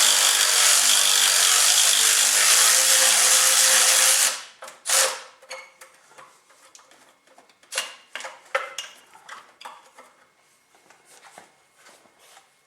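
Cordless power wrench running on an exhaust manifold bolt for about four seconds, then stopping, with one more short burst about a second later. Light metallic clinks and knocks of the socket and extension follow.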